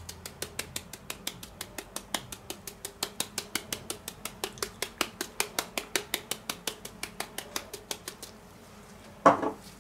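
Ground paprika shaken from a spice shaker jar over minced pork in a steel bowl: a rapid, even run of rattling clicks, about five a second, that stops a little over a second before the end. Near the end comes one short, louder sound.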